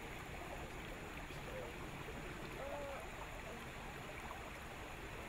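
Steady low rumble and hiss of outdoor background noise with no clear single source. Two faint short calls are heard, about one and a half and nearly three seconds in.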